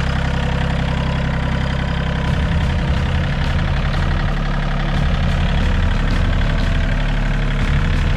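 Engine running at idle, a steady low note that turns rougher and more uneven about two seconds in.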